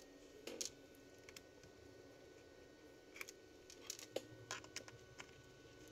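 Near silence with a few faint, scattered clicks of a small screwdriver working the screws on a laptop's bottom cover.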